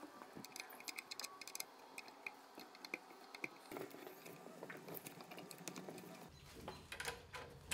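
Faint, scattered light clicks and taps from hands handling a rubber air hose on a brass barb fitting and ball valve. A low hum comes in near the end.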